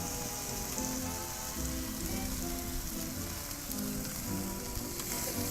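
Sauce-basted tri-tip roast sizzling steadily on a very hot barbecue grill, with music of held notes playing over it.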